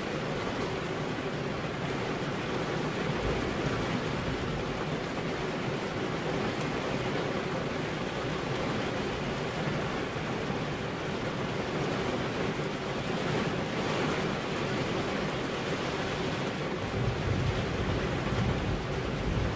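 Steady rain falling, an even hiss without a break. A deeper rumble swells briefly near the end.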